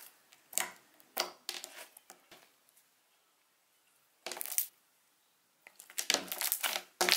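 Glossy white slime pressed and folded by hand, making short popping sounds as air bubbles burst. A few scattered pops come first, then a pause, then a quicker run of pops near the end.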